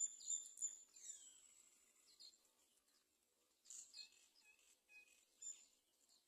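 Faint, high-pitched bird chirps: a cluster of sharp calls in the first second, one falling call just after, then scattered short chirps around the middle and near the end.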